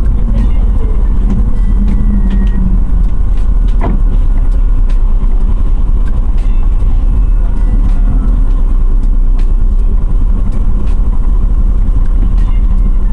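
Moving passenger bus heard from inside the cabin: steady, loud low engine and road rumble, with a hum that fades about two and a half seconds in and scattered light rattles.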